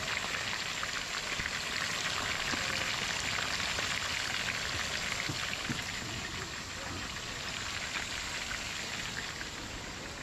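Chicken pieces deep-frying in a pot of hot oil: a steady, dense crackling sizzle.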